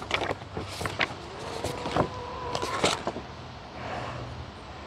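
Paper leaflets and a manual rustling and tapping against a cardboard box as they are handled, a few short crisp sounds. A faint steady hum sounds for about a second midway.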